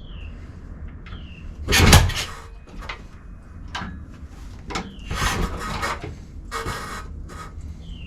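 BSA B44 single-cylinder engine being kicked over without firing: a series of mechanical clunks from the kickstart lever and engine, the heaviest about two seconds in, with more around five to seven seconds, and a few short falling squeaks between them. The engine is cold and has no decompressor, so it is hard to get over top dead centre.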